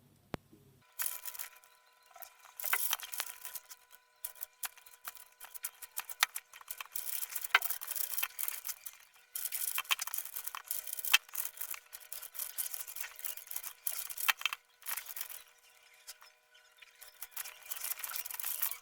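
Rubik's cube being turned by hand: rapid plastic clicks and scraping of the layers in quick flurries, with brief pauses.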